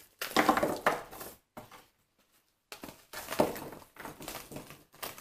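Broken fragments of a cracked cement casting clattering and scraping against each other and crinkling the plastic sheet they lie on as they are handled, in two bouts with a pause of about a second between.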